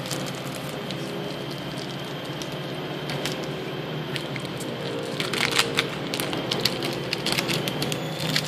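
Foil booster pack wrapper crinkling and crackling as it is worked open, in scattered crackles that are busiest about five seconds in and again near the end, over a steady low hum.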